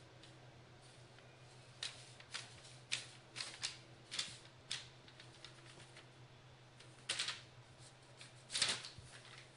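Newspaper crinkling and rustling in short, irregular bursts as a kitten pounces on and scrabbles at it, the loudest burst near the end.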